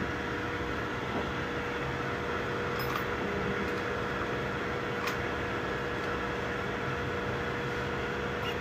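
3D printers running: a steady whir of cooling fans with a constant hum, and a few faint clicks.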